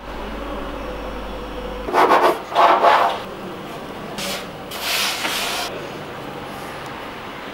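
Hands working soft pinsa dough on a floured wooden counter, pulling it apart and shaping it: a few rubbing, scraping bursts, the two loudest about two seconds in and softer ones a couple of seconds later.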